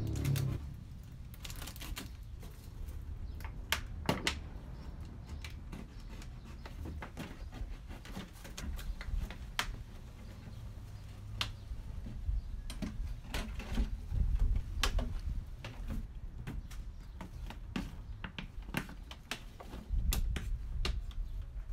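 A large PET plastic water bottle being cut and worked with a hand tool: irregular clicks and crackles of the stiff plastic. Low rumbles come and go, loudest about two-thirds of the way in and near the end.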